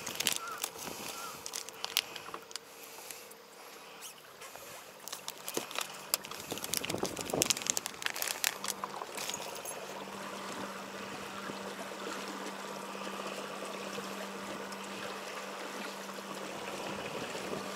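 Rustling and clicking of a plastic lure bag and tackle being handled for the first several seconds. From about eight seconds in, a steady low hum, likely a boat's electric motor, runs under an even hiss of rain and water.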